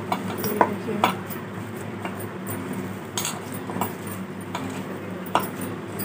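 Stainless steel bowl clinking and knocking in scattered light taps as hands knead and mix a soaked sabudana and mashed potato tikki mixture in it, over a steady low hum.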